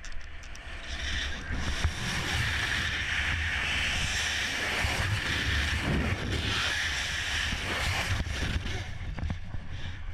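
Wind rushing over a helmet-mounted camera's microphone during a wingsuit flight, a steady hiss with a low buffeting rumble. It thins out near the end as the parachute canopy opens.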